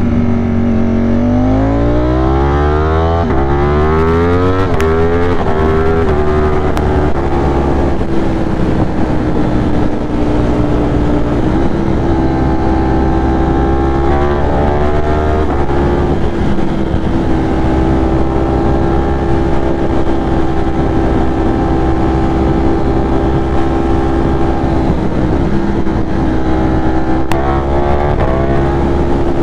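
Ducati Streetfighter V4 engine accelerating hard, its pitch climbing with a gear change about four seconds in. It then runs at a steady, nearly even pitch while cruising in fourth gear, with small dips and rises in the throttle.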